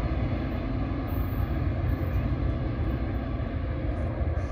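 EMD GP40PH-2 diesel locomotive's two-stroke engine running with a steady low rumble.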